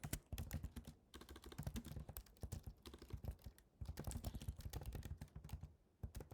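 Typing on a computer keyboard: quick runs of key clicks with short breaks in between, as a sentence is typed out.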